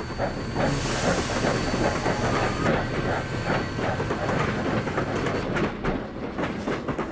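Southern Pacific steam locomotive working slowly, its exhaust chuffing at an even beat of about three a second. A burst of steam hiss comes in about a second in and lasts some two seconds.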